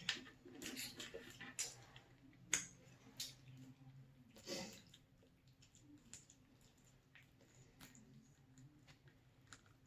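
Close-up mouth sounds of someone eating cheesy pizza dip: soft wet smacks and clicks of chewing, a few louder ones in the first half, then near silence.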